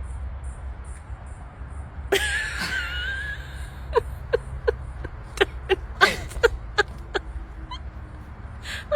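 A dog whining in a high, wavering tone for about a second, then a string of short, sharp yips.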